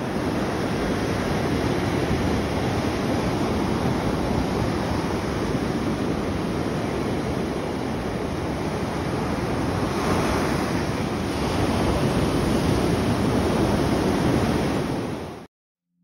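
Ocean surf breaking and washing up a sandy beach: a steady rush of waves that swells a little about ten seconds in and again near the end, then cuts off suddenly.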